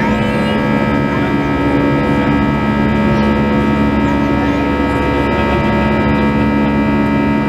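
Airliner's underwing turbofan engine and airflow heard inside the cabin in flight: a loud, steady drone with several steady humming tones.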